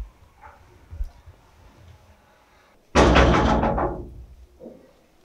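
A door bangs open with a sudden loud crash about three seconds in, ringing out over about a second. A couple of soft thumps come before it.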